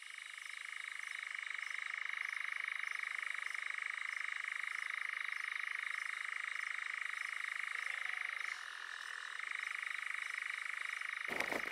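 Night ambience: a dense, steady chorus of calling animals, rapidly pulsing, that fades in at the start and dips briefly about two-thirds of the way through. Near the end a louder, rough crackling noise breaks in over it.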